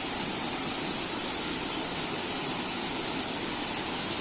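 Steady rushing of a waterfall: falling water making a continuous, even hiss.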